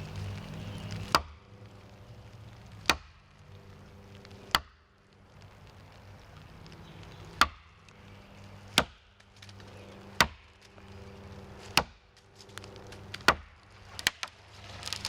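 Axe chopping through a small maple sapling: eight sharp strikes about every one and a half seconds, then a few quicker, lighter hits near the end.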